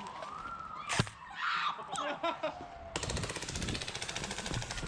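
Airsoft gun firing on full auto: a fast, continuous rattle of shots that starts about three seconds in. Before it comes a single sharp crack and a tone that slides up and then down.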